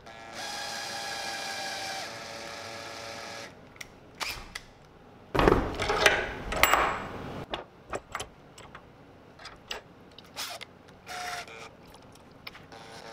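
Cordless drill running at a steady whine for about three seconds, spinning two strands of wire clamped in a bench vise to twist them together. Then come clicks and a louder bout of handling clatter about five seconds in, as the twisted wire is worked free. A brief short whir of the drill comes near the end.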